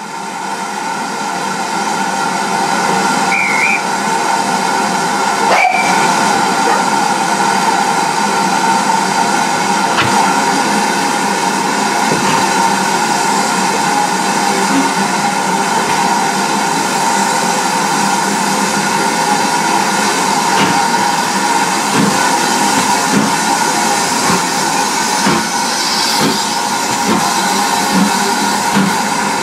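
Steam hissing steadily and loudly from GWR 4575-class 'Small Prairie' 2-6-2T tank locomotive no. 5526, heard close up on the engine. A few short knocks come in the second half as the locomotive gets moving.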